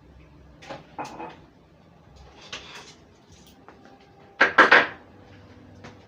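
Scattered knocks and clatter of household objects being handled, like cupboards and dishes in a kitchen, the loudest a sharp double clatter about four and a half seconds in.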